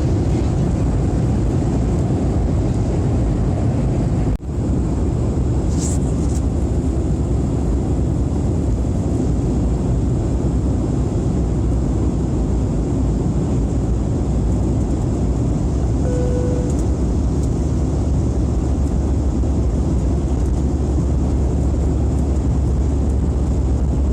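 Airliner cabin noise heard from a window seat in flight: the jet engines and the airflow make a loud, steady low rumble. There is a brief dip in loudness about four seconds in.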